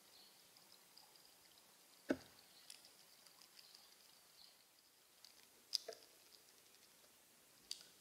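Near silence broken by about five short, sharp taps and clicks: a common grackle's beak and feet knocking on the plastic seed tray of a Bird Buddy smart feeder, picked up by the feeder's own microphone.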